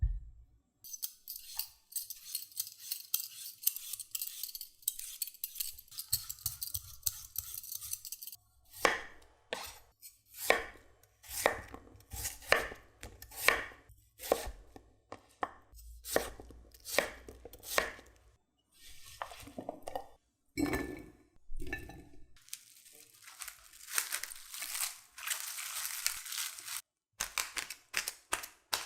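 A knife cutting raw potato on a cutting board, in separate strokes about once a second, between stretches of rapid fine scraping.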